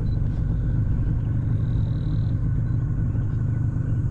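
Outboard motor of a river pirogue running at a steady speed: a low, even hum.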